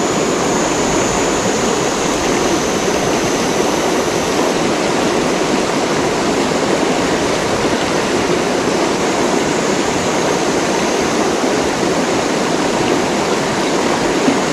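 Shallow, rocky river running over stones: a steady, even sound of flowing water.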